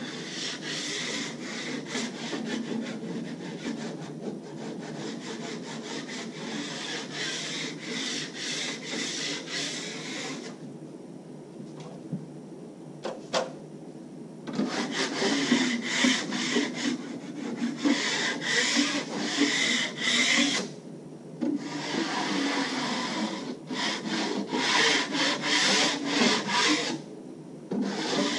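Steel drywall knife scraping joint compound along a plasterboard joint in quick repeated strokes, with a quieter pause of a few seconds about halfway through and a short tap there.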